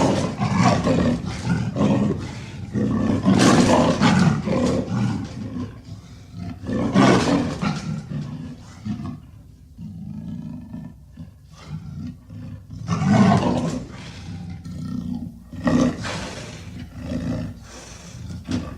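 Leopard calling: loud, rough roaring calls repeated every few seconds, the strongest near the start and about three and a half, seven, thirteen and sixteen seconds in, with quieter calls between.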